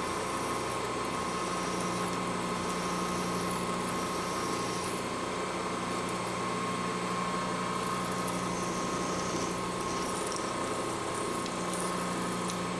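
Milling machine spindle running steadily, a low hum with a steady whine over it, while a twist drill is pecked into a deep hole in a metal block.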